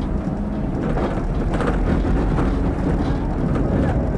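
Tram running along street track, heard from inside the driver's cab: a steady low rumble of wheels on rail and running gear, with a few short knocks and rattles.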